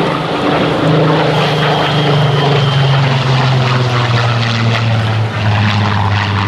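Supermarine Spitfire's Rolls-Royce piston engine running loud and steady as the fighter flies past, its pitch sliding slowly down as it goes by.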